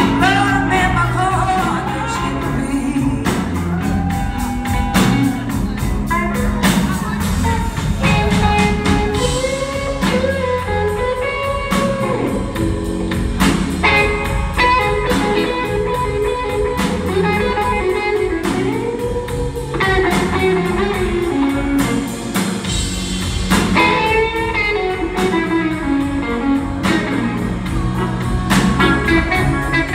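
A live blues band playing a slow blues. A lead electric guitar plays bending, gliding notes over bass and drums.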